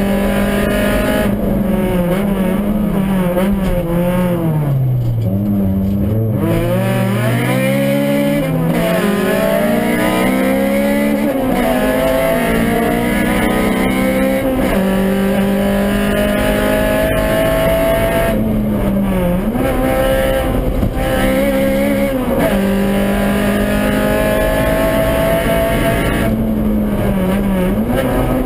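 Honda Civic rally car's engine heard from inside the cabin, running hard at high revs. About five seconds in the revs drop right down as the car slows, then climb steadily back up over several seconds; later the revs dip briefly a few times as the driver lifts or shifts.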